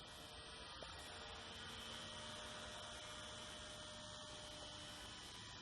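Faint, steady hum of a WLToys V931 micro electric RC helicopter's brushless motor and rotors, flying a short way off.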